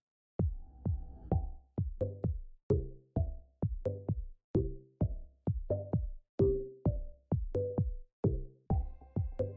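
Electronic background music with a steady beat of sharp hits and short, decaying bass notes, starting about half a second in after a brief silence.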